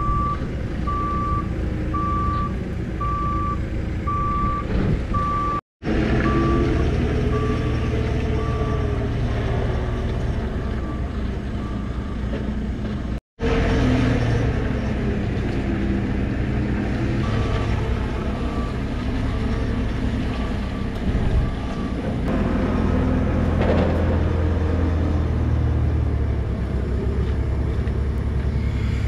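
JCB telehandler's reversing alarm beeping at a steady pace, about one and a half beeps a second, over a steady low diesel engine rumble. The beeps fade after a few seconds and stop about three-quarters of the way through, while the rumble carries on. The audio cuts out briefly twice.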